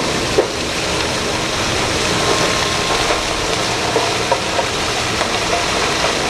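Giant mining dump truck's diesel engine running steadily while its raised bed tips out a load of rock, the rock sliding off in a dense, even rushing noise with scattered small knocks.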